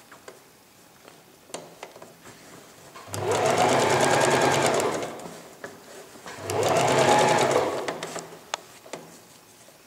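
Domestic electric sewing machine stitching piping along a zipper in two short runs, each a second and a half to two seconds long. There are faint handling clicks between the runs.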